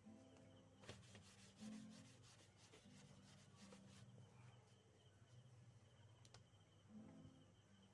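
Faint, rapid rubbing strokes, about five a second, of a small whiteboard being wiped clean, stopping about four seconds in.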